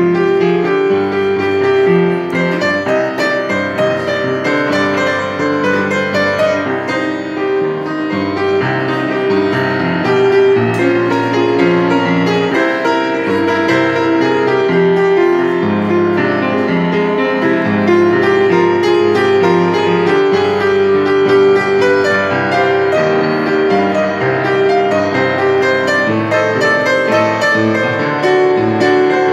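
Solo grand piano being played live: a melody of held notes over bass notes and chords, at an even level throughout.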